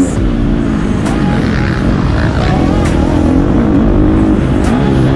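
KTM 250 SX-F four-stroke single-cylinder motocross engine heard from onboard, revving up and down as the rider works the throttle over the track. The throttle is backed off right at the start, then the engine pitch rises and falls repeatedly.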